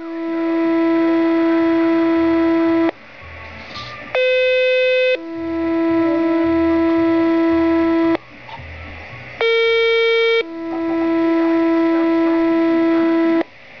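Motorola Minitor II fire pager sounding dispatch's two-tone sequential paging tones during a pager test. Three tone sets go by, each a short higher tone of about a second followed by a lower tone held for about three seconds, with brief gaps between them. Each set addresses a different department's pagers.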